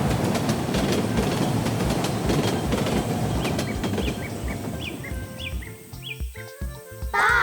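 A steady rumbling, rattling machine noise with an even low beat, fading out after about five seconds as a simple music tune comes in.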